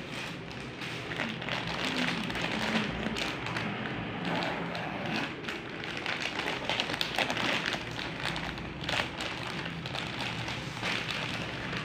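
Clear plastic zippered pouch crinkling and rustling as hands handle it and open it, an irregular stream of crackles and light taps.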